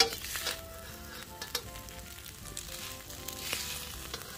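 Fried noodles sizzling in a steel wok, with a metal spatula clinking and scraping against the wok a few times; the sharpest clink comes right at the start.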